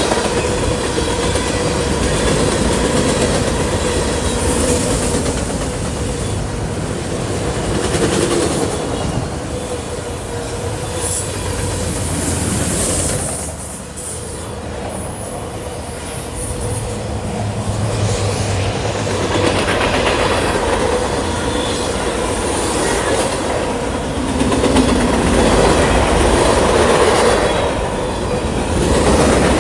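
Freight cars rolling past close by at speed: a steady, loud rumble and clatter of steel wheels on the rails, with a thin steady wheel squeal, easing briefly about halfway through.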